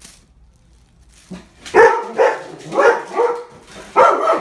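A dog barking, about five loud barks in quick succession starting a little under two seconds in.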